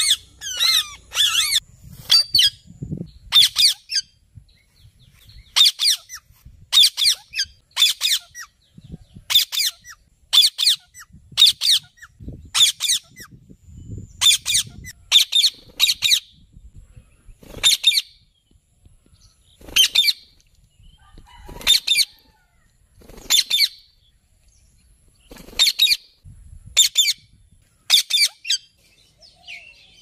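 Indian ringneck parakeets giving loud, shrill screeching calls, each a quick string of short notes. The calls repeat every second or so at first and about every two seconds in the second half.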